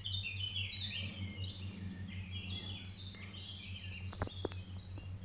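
Wild birds singing in the surrounding trees, many short high chirps and phrases overlapping, over a steady low hum. A couple of soft clicks about four seconds in.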